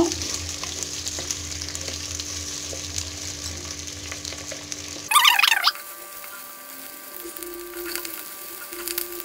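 Shallots, garlic, dried red chillies and curry leaves sizzling in hot sesame oil in a clay pot, stirred with a wooden spatula. The sizzle is steady for about five seconds, then drops quieter.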